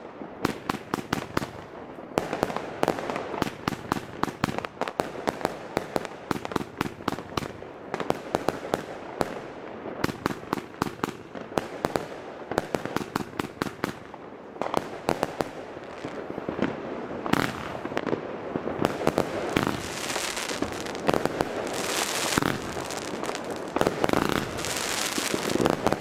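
Magnum Backfire Rudebox 100-shot firework compound cake firing: a rapid string of shots and bangs, several a second, with crackling that thickens over the last several seconds.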